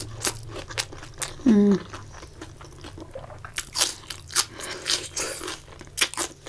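Close-up mouth sounds of eating: a mouthful of fried brinjal pakauda being chewed, then crisp crunching bites of raw red onion slices, with many quick crackles from about three and a half to six seconds in. A short hummed 'mm' falls in pitch about a second and a half in.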